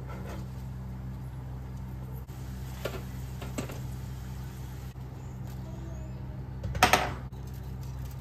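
A steady low appliance hum, with a few light knocks as chips are tipped from a metal wire skimmer. Near the end there is a louder brief clatter as the skimmer is set down on a wooden chopping board.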